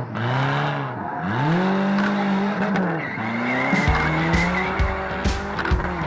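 Car engines revving up and down in repeated swells, with a brief high squeal about three seconds in. About four seconds in, music with a steady heavy drum beat comes in.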